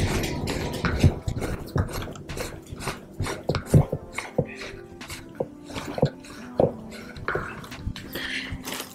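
Irregular light clicks and knocks as a roller-skate toe stop and toe cap are handled and worked back onto the skate's plate.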